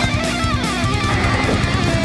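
Rock music with electric guitar and a steady driving beat.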